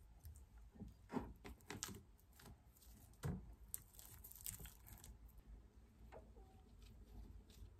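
Faint crackles and soft taps of fingers pressing and spreading cooked rice over a crisp sheet of dried laver, with a few short clicks, the loudest about three seconds in.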